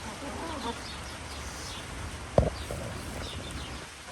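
Small birds chirping faintly in the background, with one sudden dull thump about two and a half seconds in.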